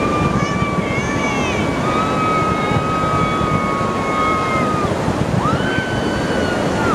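A steady rush of surf and wind noise with crowd ambience, overlaid by several long, held horn tones that overlap and start and stop; a higher one starts about five and a half seconds in and holds on.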